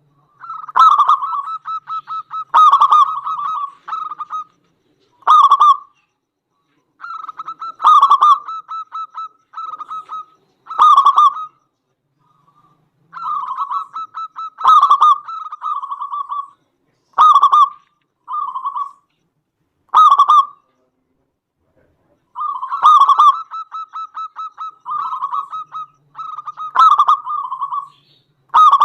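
Zebra dove (perkutut) cooing: loud, repeated rolling phrases, each about half a second to a second and a half long, separated by short pauses, with a longer pause a little past two thirds of the way through.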